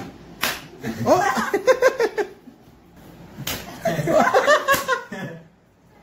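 Two sharp hand slaps, about three seconds apart, as one player slaps the other's outstretched hands; each slap is followed by a burst of laughter.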